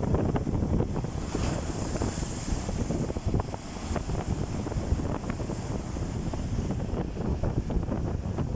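Storm-driven waves washing onto the shore under heavy wind buffeting the microphone; a louder hiss of breaking water comes about a second in and fades over the next two seconds.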